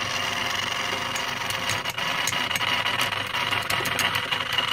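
EBM-papst M4Q045 shaded-pole fan motor running on the bench with a steady whine, joined about a second in by fast irregular ticking and rattling. It sounds bad; the owner puts it down to its worn sleeve bearings.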